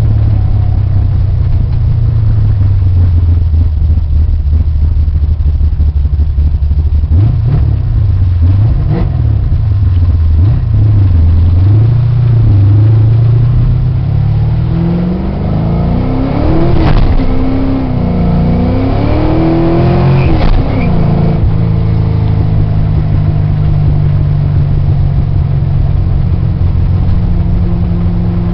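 1989 Mustang GT's 418-cubic-inch stroker V8, heard from inside the cabin. It runs at low rpm, then about halfway revs up and down several times with a few sharp knocks, and settles back into a steady cruise.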